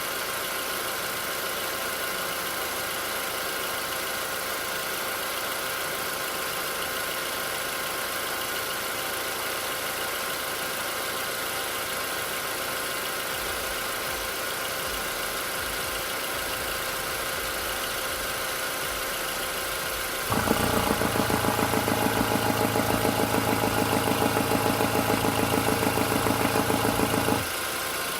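Volkswagen Passat B5+ 1.8T (AWM) turbocharged four-cylinder engine running steadily at raised warm-up idle, with the knock heard from around the turbocharger. About 20 seconds in, a louder steady hum with a fast rhythmic pulse starts suddenly and stops after about seven seconds.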